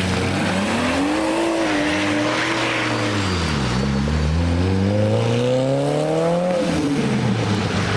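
Mitsubishi Lancer Evolution's turbocharged four-cylinder accelerating hard away on a wet road. The engine note climbs, drops at a gear change about three and a half seconds in, then climbs again and eases off near the end.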